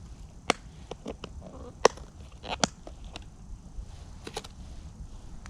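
Wood campfire crackling: scattered sharp pops and snaps at irregular intervals, the loudest about two seconds in, over a low steady rumble.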